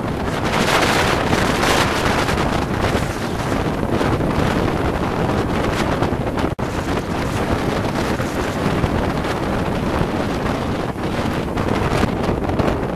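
Cyclone-force wind buffeting the microphone over storm-surge waves breaking and washing across a flooded foreshore: a loud, steady rush of noise that cuts out for an instant about halfway through.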